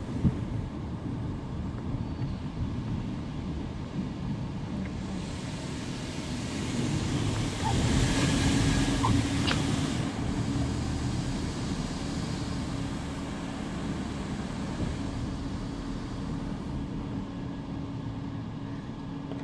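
Automatic tunnel car wash heard from inside the car: a steady rumble and hum from the wash machinery, with water spray hissing over the windshield that swells to its loudest about eight seconds in and then dies down.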